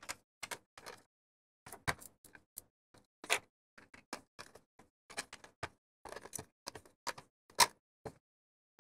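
Irregular run of short clicks and knocks from a white plastic inline duct fan and its plastic mounting plate being handled and turned over, about two or three a second, the loudest about three-quarters of the way through.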